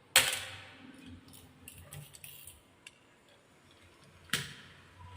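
Balls on a marble run: a sharp clack as a ball drops onto the track, then a light rattle and clicking as it runs down, with a second sharp clack about four seconds in.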